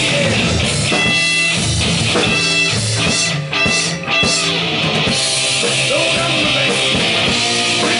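Loud live rock band: distorted electric guitars, bass guitar and drum kit playing together, with two short breaks in the playing about three and a half and four seconds in.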